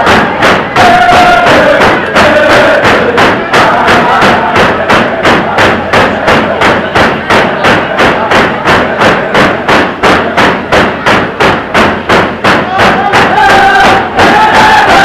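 Tlicho (Dogrib) hand drums beaten in a fast, steady beat, about three strikes a second, for a drum dance. Men sing over the drumming at the start, drop out, and come back in near the end.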